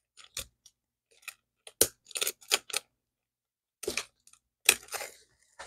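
Small metal strap clasps clicking and clinking against a handbag's metal frame and hardware as a strap is clipped on: a scattered string of short, sharp clicks.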